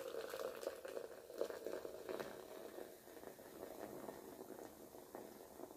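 Coke poured from a can into a plastic tumbler: a thin stream running into the cup while the carbonated soda fizzes and crackles with many tiny bubble pops, getting gradually quieter.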